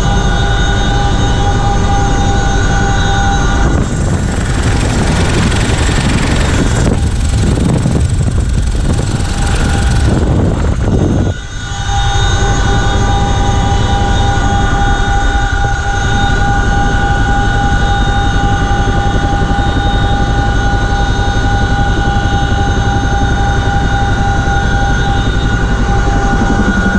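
CH-47F Chinook heard from inside the cabin in flight: the steady drone of its tandem rotors and turbines with a high, steady gearbox whine. From about four seconds in, a loud rushing hiss covers it for several seconds, then cuts away around eleven seconds and the whine stands out again.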